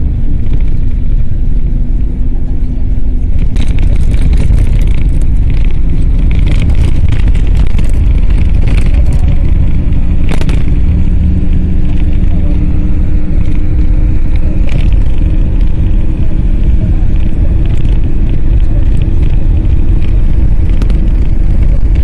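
Road vehicle driving, heard from inside: a heavy, steady road-and-wind rumble with an engine hum that slowly rises in pitch and occasional brief rattles.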